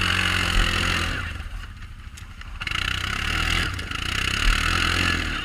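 Quad bike engine working under load while riding off-road, its note rising and falling, with a loud rushing hiss over it that dips about two seconds in and builds again.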